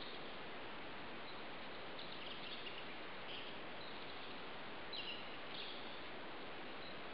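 Steady rush of shallow stream water, with a few short high chirps now and then.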